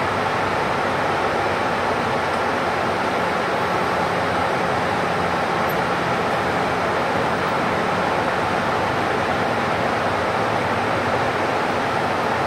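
Steady engine drone and road noise of a public bus heard from inside its cabin as it drives along at a constant pace, with a faint steady low hum under the rumble.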